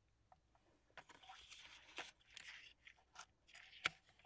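Faint rustling and light clicking of tweezers picking through a small plastic tub of metal eyelets, with one sharper click near the end.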